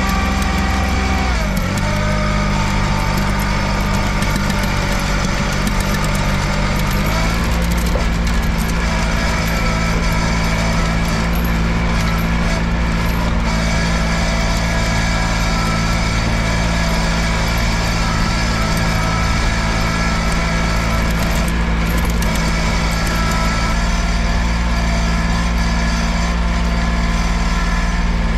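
Cub Cadet 1512 garden tractor engine running steadily while towing a chained log. The engine's pitch drops about two seconds in and picks back up around seven seconds.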